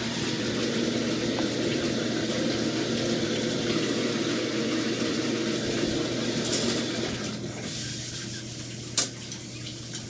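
Shower running behind the curtain: a steady hiss of water spray, easing somewhat about seven seconds in, with one sharp click near the end.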